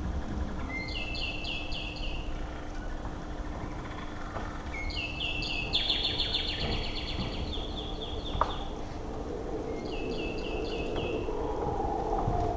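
A short birdlike chirping phrase, a brief note followed by a quick run of pulses, repeats about every four to five seconds over a low steady hum; a second, wavering drone enters near the end.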